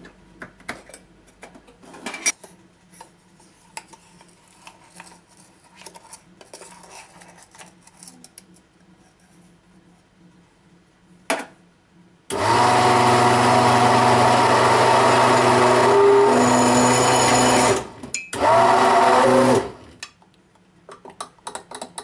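Countertop blender motor running on thick cake batter for about five seconds, stopping, then running again for about a second: a short blend to mix in the baking powder. Before it, light clinks of a spoon and the jar being handled.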